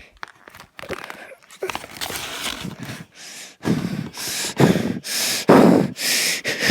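A man sobbing in loud, heaving, gasping breaths, starting about three and a half seconds in and repeating in quick succession, preceded by a few faint clicks.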